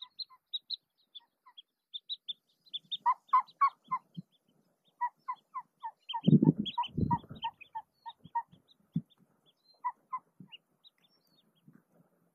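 Hen mallard at the nest giving soft, rapid clucking calls in short runs, with fainter high peeps between them. A brief rustle of movement about six seconds in.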